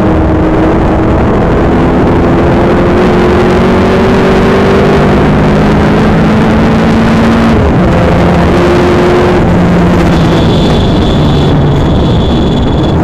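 TVR Cerbera 4.5's 4.5-litre V8 engine pulling hard, heard from inside the cabin over road and wind noise. The pitch climbs for about seven and a half seconds, drops at an upshift, climbs again briefly, then falls away as the throttle eases, with a thin high whine near the end.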